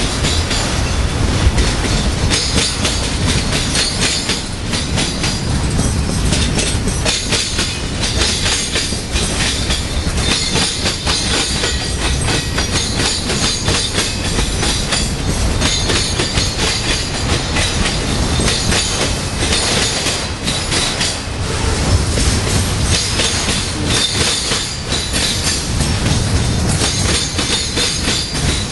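Freight cars of a Union Pacific manifest train rolling past close by: a steady low rolling noise of steel wheels on rail, with a constant run of rapid clicks from the wheels over the track and a high metallic hiss on top.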